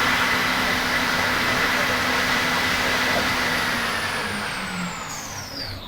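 CNC mill spindle spinning a 3D-printed chip fan at full speed, 15,000 RPM, with a steady high whine over the rush of the fan's air. Near the end the spindle spins down: the whine falls in pitch and the sound fades.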